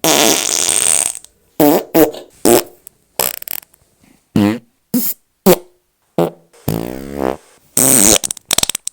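A rapid run of about a dozen separate fart sound effects, short buzzy blurts with silent gaps between them. The first is the longest, and a long one with a wavering, falling pitch comes about two thirds of the way in.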